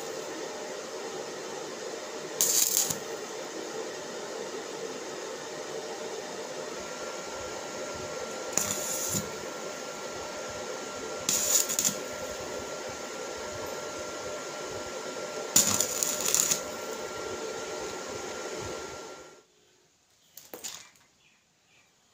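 Metalworking on steel rod: a steady machine hum with short loud crackling bursts every few seconds as the rod is welded and ground, throwing sparks. The hum stops near the end, leaving a few faint clicks.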